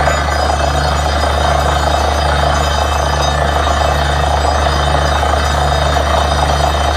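Truck-mounted borewell drilling rig running steadily at the borehole: a loud low drone with a low pulse that repeats about once a second.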